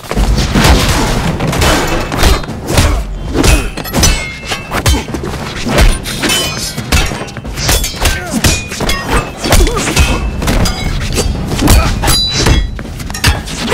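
A dense, rapid run of added fight-scene impact sound effects, with thuds and hard hits from punches and weapon strikes, over background music.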